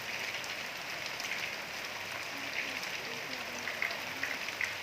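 Steady rain falling, a constant hiss with individual drops ticking close by; several louder drips come in the second half.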